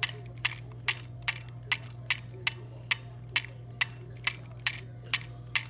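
Toy mini popcorn machine's wind-up timer ticking steadily, about two and a half ticks a second, over a low steady hum.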